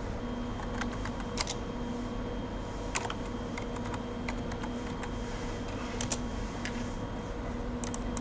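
Computer keyboard typing: short, irregular, scattered keystrokes with gaps between them, over a faint steady electrical hum.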